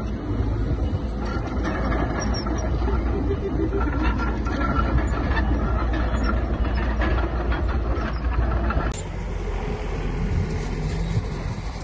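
Heavy earthmoving machinery running: a diesel engine rumbling steadily, with scattered metallic clanks. The sound changes abruptly about nine seconds in and is quieter after.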